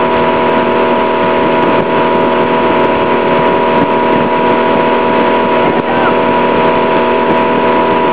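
Towing motorboat's engine running steadily at speed, a constant drone, over the rush of water.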